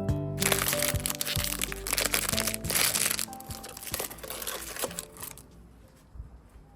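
Blind-box packaging crinkling and crackling as it is opened by hand, densest for the first few seconds, then a few scattered clicks before it stops, over background music.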